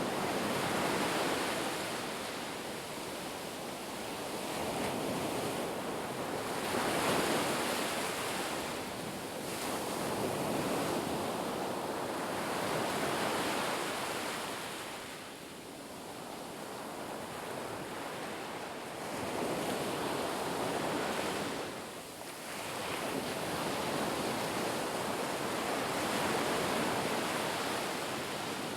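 Ocean surf: waves breaking and washing in, the rush of water swelling and fading every several seconds.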